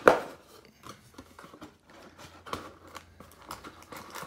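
Cardboard of a trading-card hobby box being pulled and folded open, with a sharp crack at the start, then scattered rustles and taps as the cardboard and a card insert are handled.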